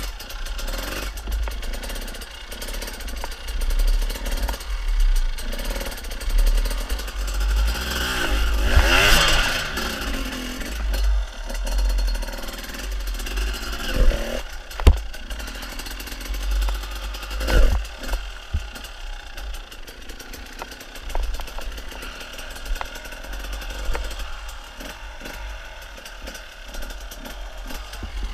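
Enduro dirt bike engine revving in uneven bursts as it climbs over rocks and roots, its pitch rising and falling. Sharp knocks and clatter of the bike hitting rocks come a few times, loudest about halfway through.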